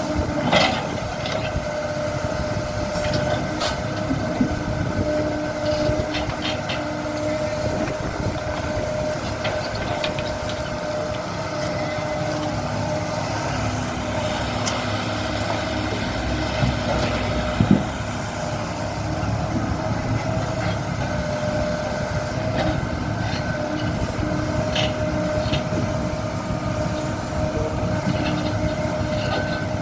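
Kobelco SK75 mini excavator's diesel engine running steadily as it digs, with a constant whine over the engine and a few sharp metallic clanks, the loudest a little past halfway.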